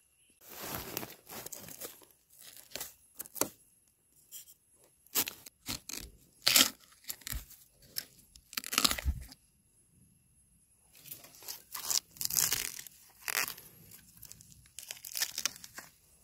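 A machete chopping young bamboo shoots off at the base, in several irregular bursts of crunching and tearing as the blade cuts into the fibrous shoots, with the sharpest chops in the middle.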